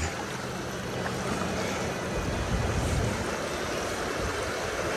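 Steady rushing of river current, with wind buffeting the microphone as an uneven low rumble underneath.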